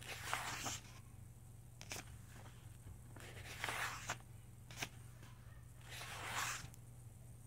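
Paper pages of a large softcover workbook being turned by hand: three soft swishes about three seconds apart, with a few light ticks between them.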